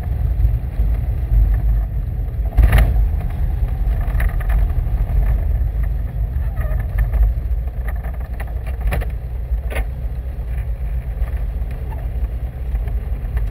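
Super Dimona motor glider's piston engine and propeller running steadily, heard from inside the cockpit as a heavy low rumble while the glider rolls along the runway. A few short knocks cut through, the loudest about three seconds in.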